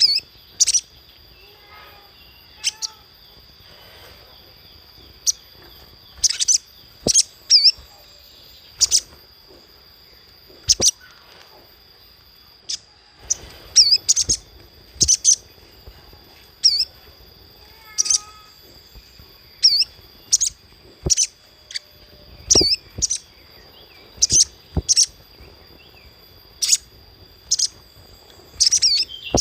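Little spiderhunter (sogon) giving short, sharp, high chipping calls again and again at irregular intervals, over a faint steady high whine.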